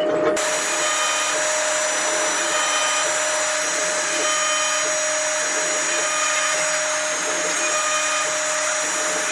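CNC router spindle running steadily with a high whine, cutting into wood.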